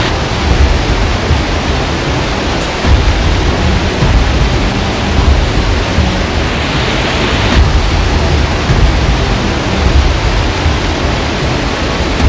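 Laxapana Falls, a 126 m waterfall, at its lower dry-season flow: falling water makes a loud, steady rush with a deep rumble underneath.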